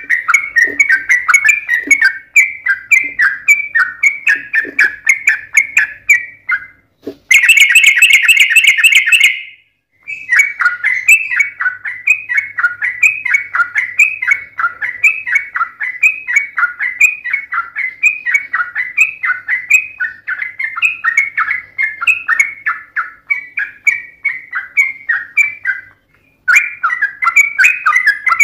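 Yellow-vented bulbul (trucukan) singing long, rapid runs of bubbly chattering phrases, one after another. About seven seconds in there is a louder, harsher burst lasting two seconds. The song breaks off briefly near ten seconds and again near twenty-six.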